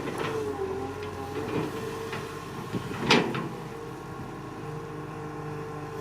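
Excavator engine running steadily, broken by several short knocks, the loudest about three seconds in.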